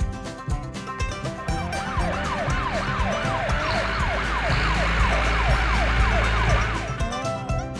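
Emergency-vehicle siren sounding in quick repeated up-and-down sweeps, about two a second, starting after a second or two and stopping shortly before the end, with music around it.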